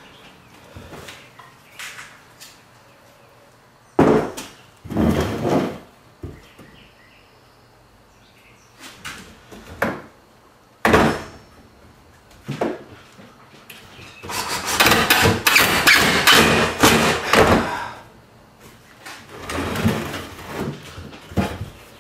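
Wooden knocks and thumps of lumber being handled on a workbench: a few separate knocks, then a longer run of clattering about two-thirds through and another shorter one near the end.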